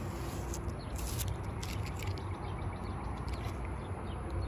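Green masking tape being peeled off a truck's painted body panel, with a few faint crackles as it lifts away, over a steady low rumble.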